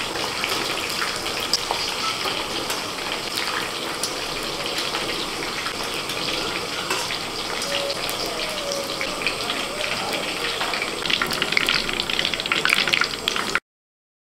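Pointed gourds frying in refined white oil in a steel kadai: a steady sizzle with scattered small clicks. About eleven seconds in, the sizzling grows louder and more crackly, then cuts off suddenly near the end.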